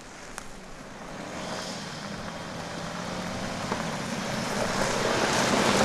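2017 BMW X3 SUV driving slowly toward the camera on a dirt off-road track: low engine hum and tyre noise on the loose surface grow steadily louder as it comes nearer.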